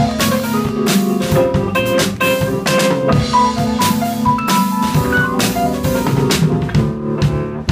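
Live small-group jazz: upright double bass and drum kit playing, with frequent snare and cymbal hits, under a melody instrument holding long notes.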